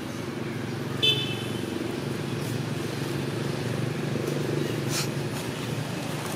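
Steady hum of a vehicle engine with a short horn toot about a second in.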